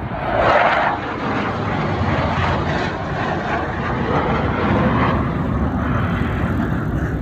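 Jet noise from a pair of F-16 fighters' turbofan engines passing overhead, loudest about half a second in, then a steady broad rumble.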